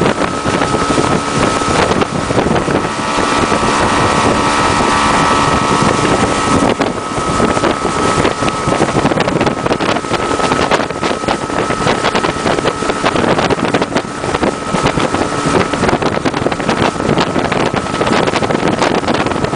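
Motorboat running at speed: a steady engine drone with a constant high whine over rushing water and spray, with wind buffeting the microphone.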